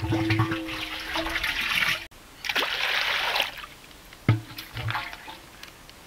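Water splashing and pouring as it is scooped from a large clay water jar, in two bursts over the first few seconds, followed by a single sharp knock.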